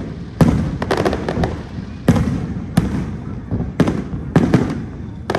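A fireworks display with aerial shells bursting overhead: about a dozen sharp bangs, some single and some in quick clusters, each trailing off in a low rumble.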